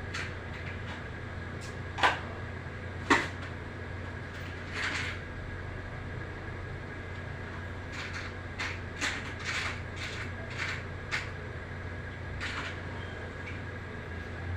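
Sharp clicks and knocks of hard parts being handled: two loud ones about two and three seconds in, then a quick run of smaller clicks later on, over a steady low hum.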